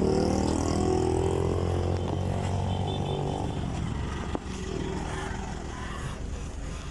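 A motor vehicle's engine accelerating, its pitch rising for the first few seconds, then running on and slowly fading as it pulls away.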